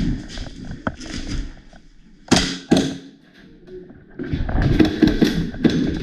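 A few sharp knocks and clicks, the two loudest a little past two seconds in and about half a second apart, followed by rustling, shuffling movement noise near the end.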